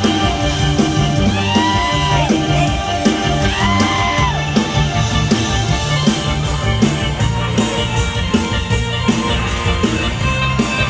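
Loud live Isan mor lam band music with a steady drum beat and a repeating bass line. Two long held notes come in the first half, each rising and falling slightly.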